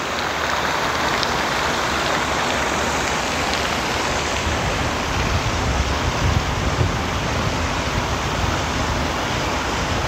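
Lake fountain spraying and splashing onto the water as a steady rushing hiss, with wind rumbling on the microphone for a few seconds in the middle.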